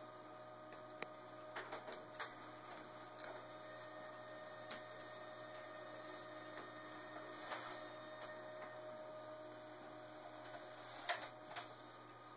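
A cat's paws and claws rustling and tapping among paper hanging file folders in an open metal file drawer: scattered light clicks, a cluster about two seconds in and the sharpest one near the end. A steady low electrical hum runs underneath.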